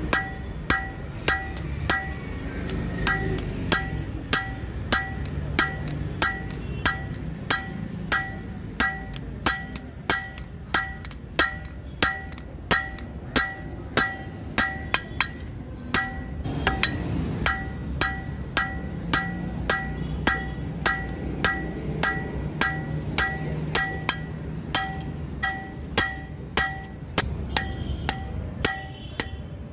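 Blacksmith's hand hammer striking red-hot leaf-spring steel on an anvil, forging a billhook blade: steady blows about two a second, each ringing sharply off the anvil.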